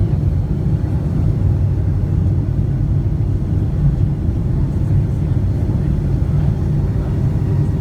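Steady low rumble inside the cabin of a Boeing 757-200 airliner, engine and airflow noise with no distinct events.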